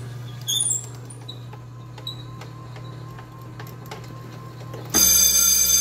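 Water race game's drive motor humming steadily with faint clicks as the number 15 racer climbs to the top. About five seconds in, the game's loud buzzing win alarm goes off as the racer reaches the top.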